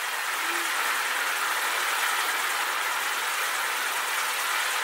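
Penny-farthing firework wheel burning, giving a steady rushing hiss as it spins and sprays sparks.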